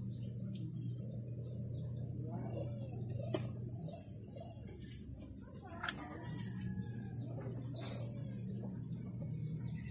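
A steady high-pitched drone and a low hum run throughout. Three light, sharp clicks come about three and a half, six and eight seconds in, as a small tool picks at the opened honey pots of a stingless bee hive box held over a stainless steel bowl.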